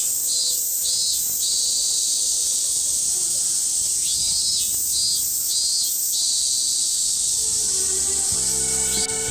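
Summer cicadas droning steadily at a high pitch, with a second pulsing insect call repeating in short runs of three or four in the first second and again around four to six seconds in. Soft background music fades in about two-thirds of the way through.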